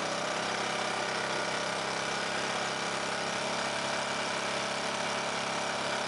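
A 2200-watt Quiet Power Technology inverter generator's engine running steadily in eco mode, taking on the load of a 15,000 BTU rooftop air conditioner as it starts; the load climbs from about 460 to about 1200 watts.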